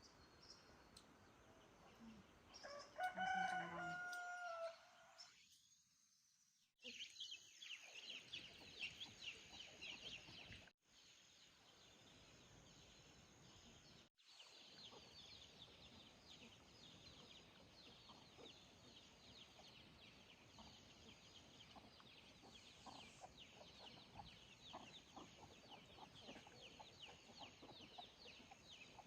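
A rooster crows once, about three seconds in, and this is the loudest sound. After that there is a faint, steady, dense high chirring in the background.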